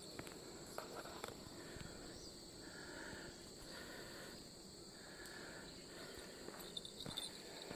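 Insects chirring steadily in a faint, high, unbroken buzz. A lower pulsing call repeats three times in the middle.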